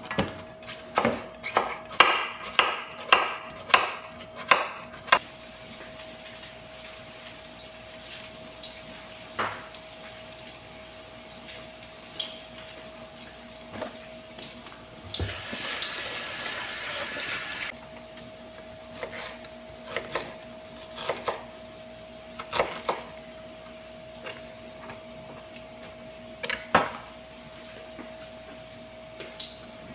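Kitchen work sounds over a steady hum: a run of about ten sharp knocks, about two a second, of a knife chopping on a wooden cutting board in the first five seconds; a tap running for about two and a half seconds near the middle; and scattered clatters of pans and utensils.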